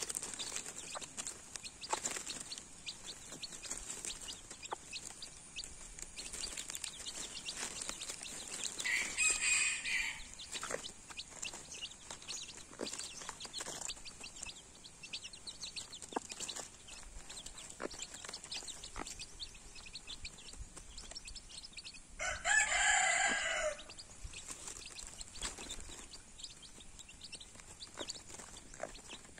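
Chickens: a rooster crows twice, a short crow about a third of the way in and a longer one about three-quarters through. Under it are many quick taps of a hen and her chicks pecking food off a leaf, over a steady high hiss.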